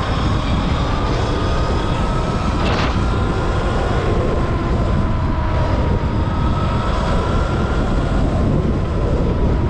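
Sur-Ron X electric dirt bike riding at speed: a thin motor whine that slowly rises and falls in pitch, under heavy wind noise on the microphone.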